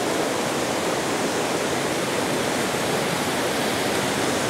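Rushing water of a forest stream below a waterfall: a steady, even rush.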